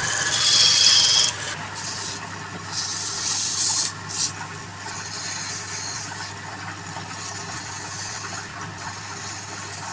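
A wood lathe motor hums steadily while a tool scrapes and hisses against the spinning wood. The cutting is loudest for about the first second, then goes on lighter and in patches.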